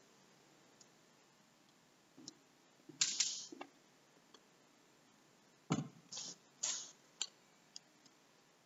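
Scattered handling noises in a quiet room: a couple of brief rustles early on, a dull thump a little past halfway, then a quick run of short rustles and clicks, as a book or papers are picked up and moved about.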